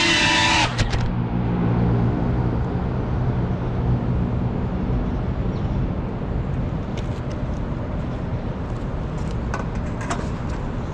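A small FPV quadcopter's motors whine with a wavering pitch, then cut off abruptly less than a second in as the drone sets down. Steady city traffic rumble follows, with a few faint clicks near the end.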